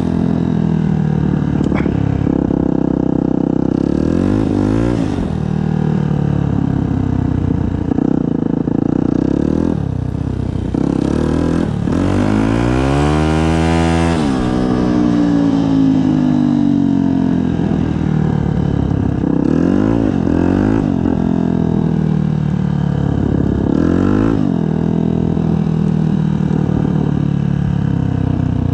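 Yamaha WR125's single-cylinder four-stroke engine through a Black Widow aftermarket exhaust, revving up and dropping back several times as the bike is ridden and shifted. The longest climb to high revs comes about halfway through, then the revs fall away.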